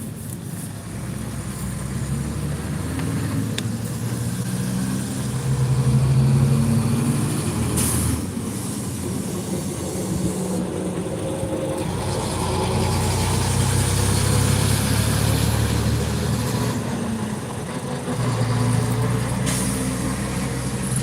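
Heavy vehicle engines running past, a low drone that swells and fades several times.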